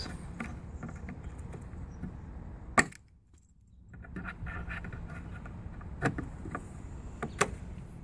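Pliers working a plastic plug out of a tail-light mounting: scattered small clicks and scrapes, with one sharper click about three seconds in, over a low steady background hum.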